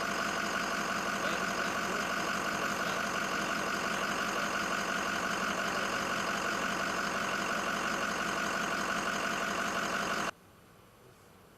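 A steady mechanical drone, like an engine or motor running, that cuts off abruptly about ten seconds in.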